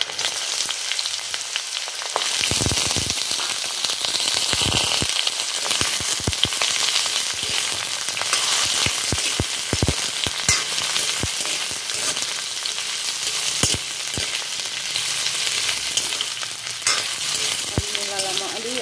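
Cut radish sizzling as it fries in hot oil in a black wok, the sizzle growing louder about two seconds in. A metal spoon knocks and scrapes against the pan as the radish is stirred.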